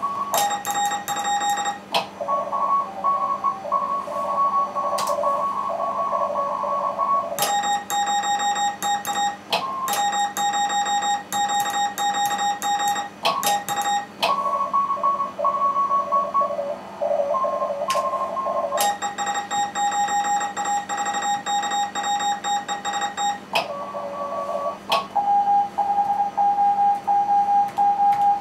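Morse code on a ham radio contest band: several stations keying at slightly different pitches overlap in the receiver, alternating with stretches of a single sharper beeping tone from the operator's own sending.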